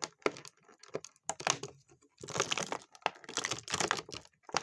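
Plastic action-figure packaging and accessories being handled: crinkling and clicking in several short bursts, as parts are pulled from the plastic tray.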